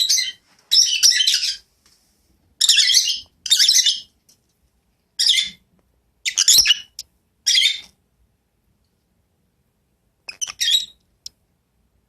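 Lovebird giving harsh squawks in short bursts of about half a second, seven in the first eight seconds, then a few shorter ones near the end. It is the angry protest of a bird disturbed while roosting for the night.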